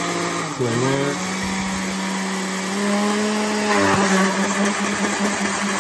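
Oster countertop blender motor running, churning a thick load of plain yogurt with chopped onion, cucumber and mint. The pitch dips briefly less than a second in, then holds steady, and the sound shifts about four seconds in.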